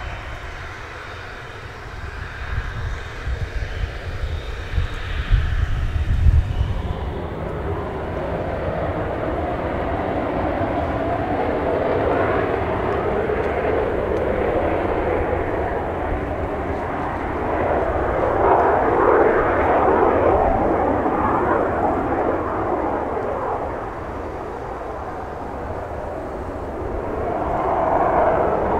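Twin turbofan engines of a Yak-130 jet trainer: a low steady running during the taxi, then from about eight seconds in a louder jet noise as it takes off and climbs away, swelling and easing in waves.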